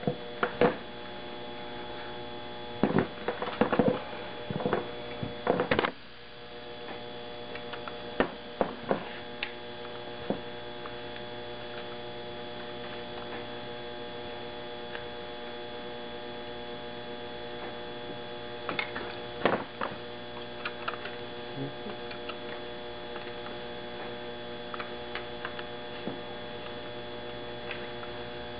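A steady electrical hum made of several level tones, with scattered sharp clicks and knocks from a rod-and-string dog puppet being worked. The clicks come in clusters about three to six seconds in, again around eight to nine seconds, and around nineteen to twenty seconds, with lighter ticks later on.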